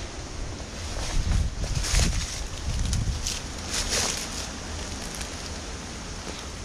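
Wind buffeting a head-mounted camera's microphone as a steady low rumble, with a few irregular crunching rustles in dry leaf litter between about one and four seconds in.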